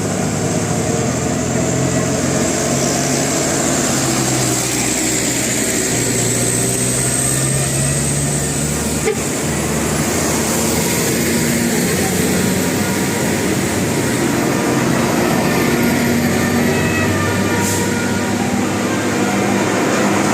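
Bus engines running in road traffic, their low engine note rising and falling over several seconds. A single short click comes about nine seconds in.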